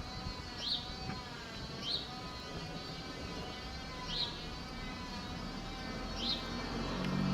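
Siemens E57 electric siren sounding a faint steady tone with several overtones that waver slightly. A small bird chirps four times over it, each a short falling note.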